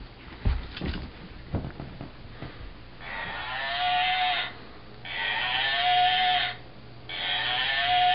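A few thumps and patter from dogs' paws on the floor, then a dog giving three drawn-out howling whines, each about a second and a half long and rising into a held pitch.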